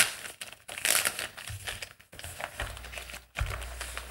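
Packaging rustling and crinkling in irregular bursts as a mechanical keyboard is pulled out of its box, with a low rumble of handling joining in over the second half.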